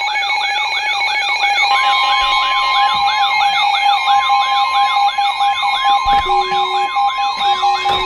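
Several NOAA weather alert radios sounding their warning alarms at once for a severe thunderstorm warning: a fast warbling siren tone repeating about three times a second over steady electronic beeping. About two seconds in, a steady long alert tone joins, and a short lower beep sounds twice near the end.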